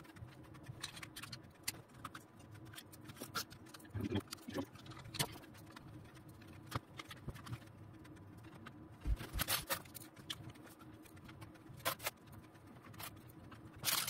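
Small screws and a screwdriver clicking and tapping against SSD mounting brackets as the drives are screwed in: quick, irregular light clicks, with a few louder knocks in the second half.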